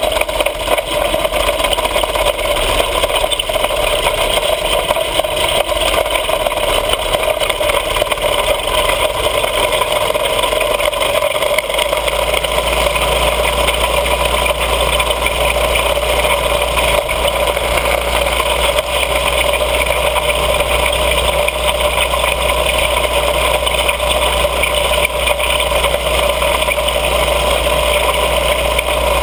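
Mini bike's small engine running steadily under way. A deeper low rumble comes in about twelve seconds in and holds.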